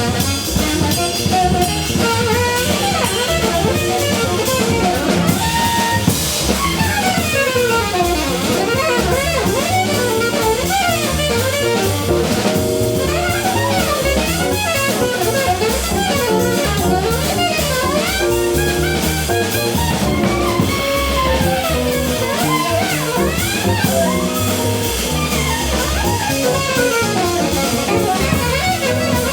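Small jazz band playing live: drum kit and bass keep time under quick rising and falling runs of notes from guitar and saxophone.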